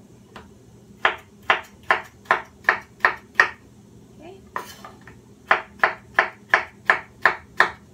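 Kitchen knife slicing a cucumber on a wooden cutting board: a run of about seven even chops, roughly two and a half a second, then a pause, then another run of about seven.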